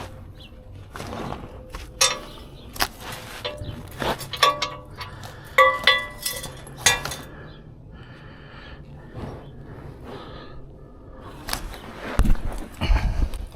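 A run of knocks and metallic clinks, several ringing briefly, as metal tools and parts are handled and set down, with more knocks near the end.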